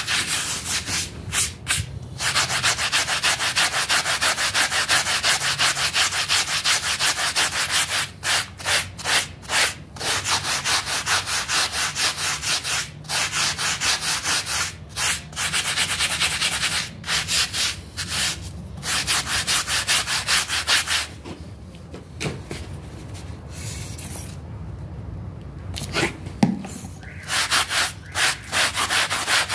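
Stiff plastic scrub brush scrubbing a wet, soapy shag rug in rapid back-and-forth strokes. The strokes stop briefly several times, and for several seconds about two-thirds of the way through, then start again near the end.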